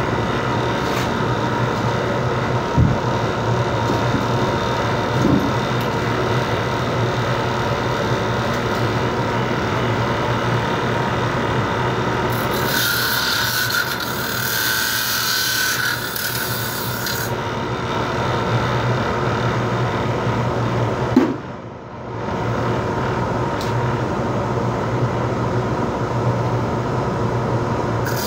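Electric cut-off tool with an abrasive wheel running steadily, with a spell of cutting and grinding as copper television-yoke wires are pressed against the spinning disc partway through. Near two-thirds of the way through the running sound briefly drops away and then builds back up.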